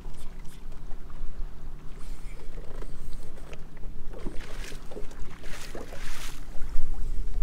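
Choppy water slapping against a bass boat's hull, splashing more busily for a few seconds in the middle, over a steady low hum.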